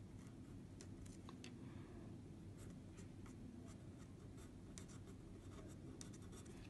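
Faint scratching of a pen writing on paper, in short irregular strokes as letters are formed, over a low steady room hum.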